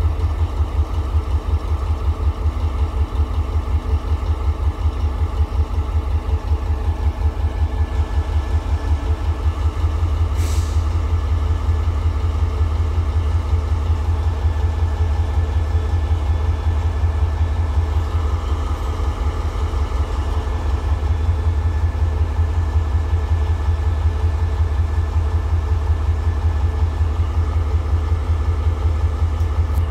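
Diesel engine of an SRT CSY-class diesel-electric locomotive idling steadily with a deep, even throb. A single sharp click sounds about ten seconds in.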